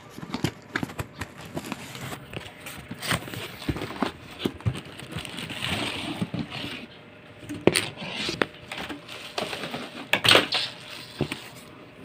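Cardboard box and plastic packaging being handled while a vacuum cleaner is unpacked: flaps scraping, wrapping rustling, and a string of small clicks and knocks. There are a few louder sharp knocks near the end.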